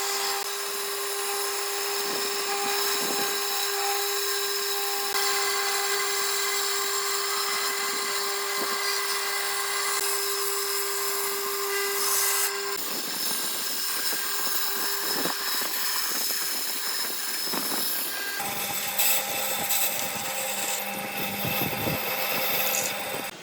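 Power tools running on wood, with a steady whine that stops about halfway through and a changed machine sound after it.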